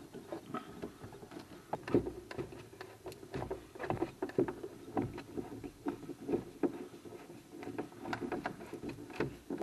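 Irregular clicks, knocks and rattles of a hand screwdriver working and a plastic foosball ball-return track being handled as the track is screwed back onto the underside of the table.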